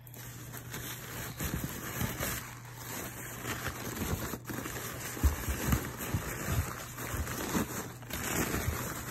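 Rustling and crackling of packing material, excelsior wood wool and paper wrapping, being handled and dug through in a cardboard box, with many small irregular crackles over a steady low hum.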